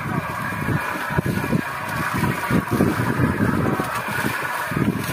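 Outrigger fishing boat's engine running steadily, with wind buffeting the microphone in uneven low gusts.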